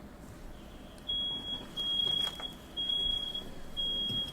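Smoke alarm going off, its single high-pitched tone beeping about once a second, set off by firework smoke in a room.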